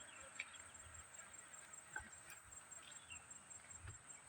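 Near silence: faint outdoor ambience with a steady high hiss and a few scattered faint chirps and ticks.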